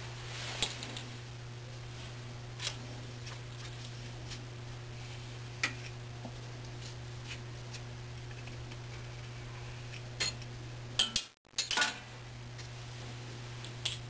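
Occasional light clicks and taps of a wooden dipping board and a metal tool against an aluminium pot of melted beeswax, a few seconds apart with a quick cluster near the end, over a steady low hum.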